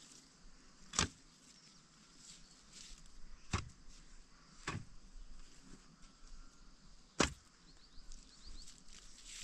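Four sharp knocks at irregular spacing, the first about a second in and the loudest two being the first and the last, some seven seconds in.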